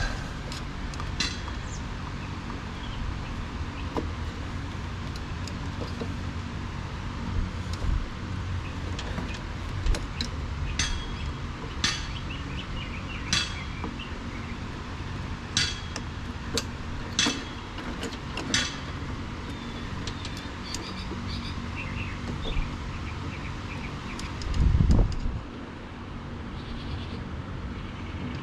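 Scattered light metallic clicks and clinks of hand tools and parts as a drive belt is worked onto a snowblower's pulleys, over a steady low hum. A louder low rumble lasts about a second near the end.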